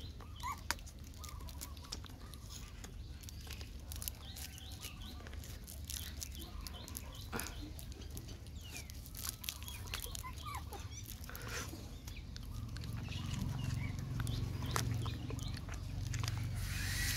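Faint short chirping calls from small animals and scattered small clicks, with a low hum building over the last few seconds.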